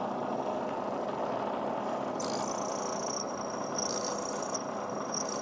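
Electric drill with a 1/8 inch bit running steadily. From about two seconds in, a high thin whine comes and goes several times.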